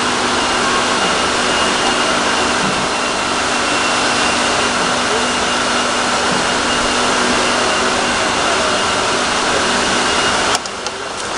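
Polyurethane foam-injection machinery running with a loud, steady rushing noise and a constant hum. The noise cuts off abruptly about ten and a half seconds in.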